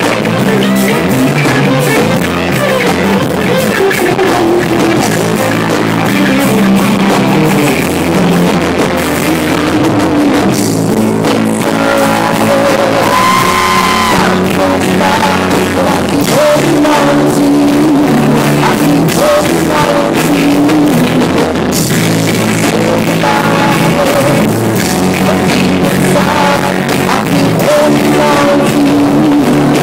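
Live rock band playing: electric guitars and drum kit, loud and steady, heard from right beside a PA speaker.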